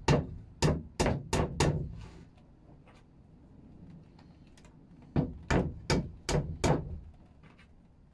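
Claw hammer tapping short wooden tenons down into their slots along a wooden rail. It strikes in two quick runs of about five sharp knocks each, with a pause of about three seconds between them.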